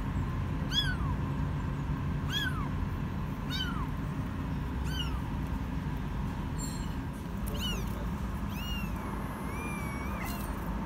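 A kitten meowing over and over: short, high-pitched cries about every second and a half, then after a brief pause a few more, with one long, wavering cry near the end.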